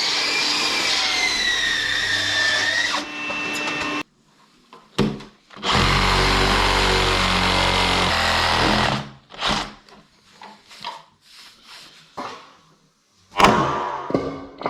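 Power tool running under load with a wavering whine, stopping about three seconds in. A second power tool run follows for about three seconds with a low hum, then scattered knocks.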